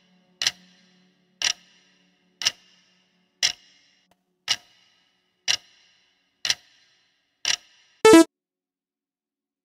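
Countdown-timer sound effect: a clock-like tick once a second, eight times, then a brief, louder pitched alert about eight seconds in as the timer runs out.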